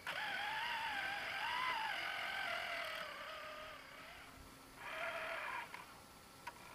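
Electric drive motor and gearbox of an RC scale trial truck whining while it is driven, a pitched whine that wavers slightly. It runs for about three and a half seconds, then comes in two short bursts about five seconds in and near the end.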